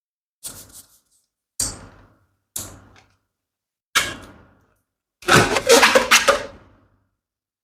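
Rubber balloons snapping sharply: four separate snaps about a second apart, each dying away within half a second, then a dense flurry of quick snaps lasting about two seconds.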